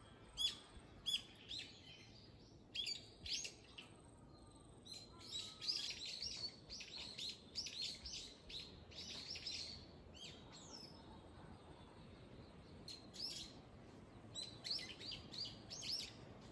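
Wild songbirds chirping and twittering: many short, high calls in quick clusters, busiest from about five to nine seconds in and again near the end, over a faint steady outdoor background.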